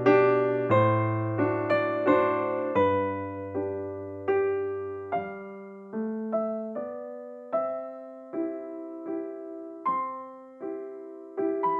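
Background music of slow piano, single notes and chords each struck and left to fade. The low bass notes drop out about five seconds in.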